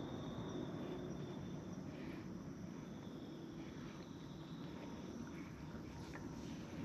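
Faint outdoor ambience: a steady, high insect trill over a low background rumble.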